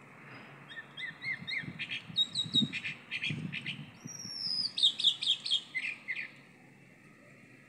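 Chalk-browed mockingbird singing a long, varied phrase of short whistled notes, slurred whistles and quick chirps, stopping about six seconds in.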